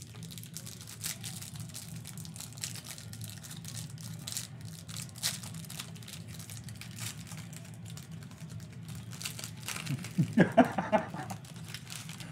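Clear plastic wrapper of a Panini Absolute basketball card pack crinkling and crackling as it is torn open and peeled off the cards. Near the end there is a brief murmur of a man's voice.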